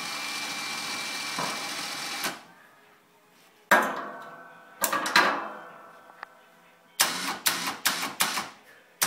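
Metal hardware clanking as a winch hook is hooked onto a steel ATV snow plow blade: two sharp clanks that ring briefly, then a quick run of metallic clicks and rattles. A steady hiss with a faint thin tone runs for the first couple of seconds.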